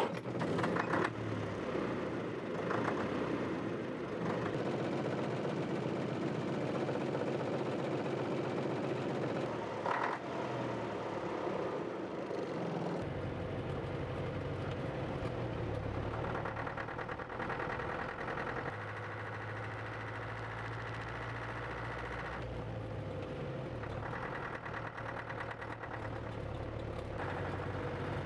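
Gardner 4LK four-cylinder diesel, fitted without a cooling fan in a Land Rover Series IIA, running just after start-up, heard from inside the cab. There is a single clunk about ten seconds in. From about thirteen seconds in the engine pulls the vehicle along the road, its deep drone rising and falling in pitch with the throttle and gears.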